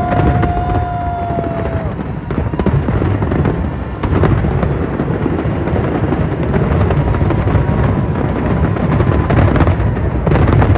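Fireworks display in a dense barrage: continuous rumbling booms with many sharp cracks and bursts. A steady whistle-like tone sounds over it in the first two seconds.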